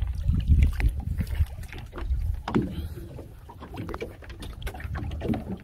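Irregular low rumble of wind and water at the side of a small open fishing boat, with scattered clicks and knocks.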